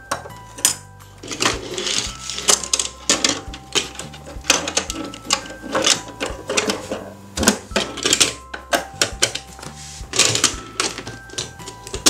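Clicking and clattering of hard plastic: the roll-up doors of a toy bus garage being slid open and shut and small plastic toy buses handled, in quick irregular knocks. A simple background tune of held notes plays underneath.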